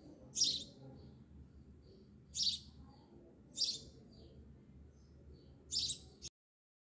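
A bird chirping: four short high-pitched calls a second or two apart, with fainter chirps between them, over a low steady background. The sound cuts off suddenly near the end.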